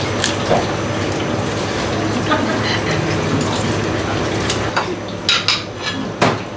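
Steady background noise, then from about five seconds in a few sharp clinks of small glass bowls as shrimp are set into them.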